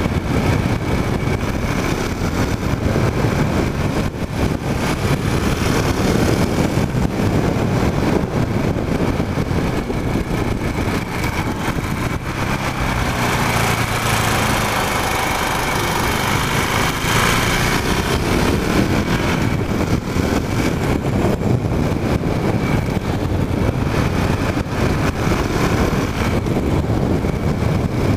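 KTM Duke motorcycle engine running while riding, its pitch falling and rising again through a bend around the middle.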